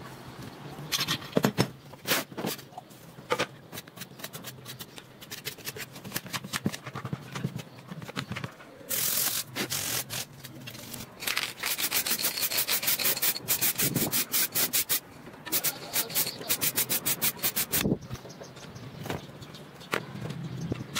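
AK-47 metal parts being scrubbed by hand during cleaning, in quick back-and-forth rubbing strokes that come in runs, about four or five a second in the longest run. A short hiss about nine seconds in.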